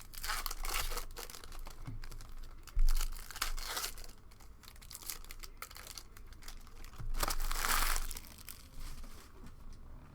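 Foil trading-card pack wrappers crinkling and tearing as packs are opened and handled, with a short dull bump about three seconds in.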